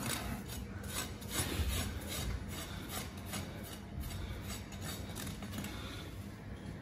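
Farrier's rasp scraping across a horse's hoof in short, light, repeated strokes, roughly two or three a second, taking off loose HoofCast casting material where it was not glued.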